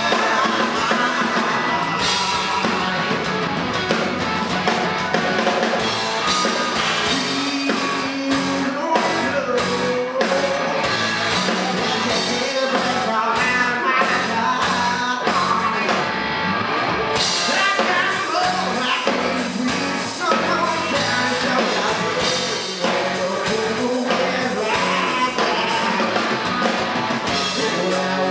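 Live rock band playing at full volume through a club PA: drum kit, bass, electric guitar and a male lead singer.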